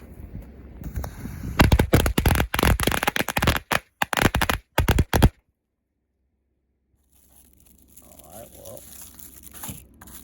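1.5-inch megabanger firecrackers going off in a rapid string of sharp bangs for about four seconds, starting about a second and a half in; the sound then cuts out abruptly to dead silence for a couple of seconds.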